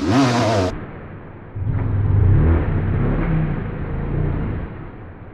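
Off-road dirt bike engine revving in short blips, dropping away for about a second, then picking back up and running at low revs.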